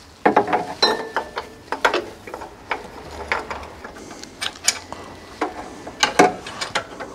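Irregular metallic clicks and clacks of hand tools and car parts being handled.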